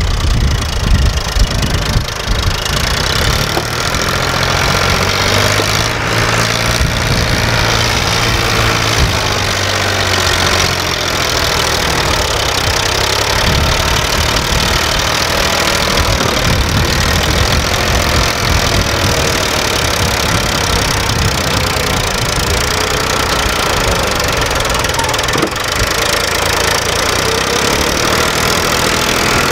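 Diesel tractor engines running loudly and steadily, one of them pulling a trolley loaded with soil, its note rising and falling as it works.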